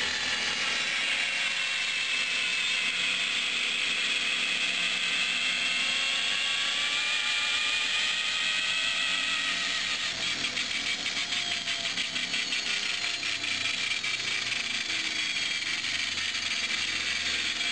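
Homemade 220 V DC generator rig spinning under power, with a motor whine that drifts up and down in pitch as the speed changes. From about ten seconds in, a fast, even clicking rattle joins it.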